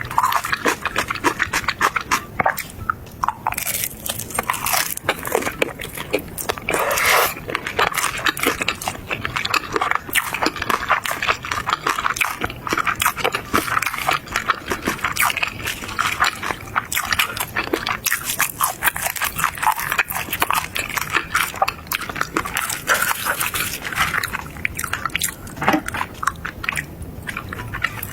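Close-miked eating: continuous chewing and biting with dense crunching and crackling clicks, typical of crispy fried chicken and a burger being eaten.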